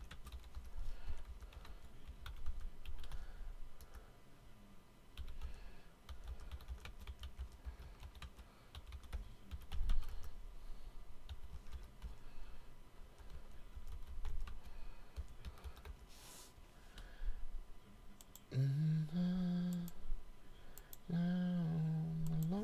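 Typing on a computer keyboard: uneven runs of key clicks with short pauses. Near the end a man hums a few held notes.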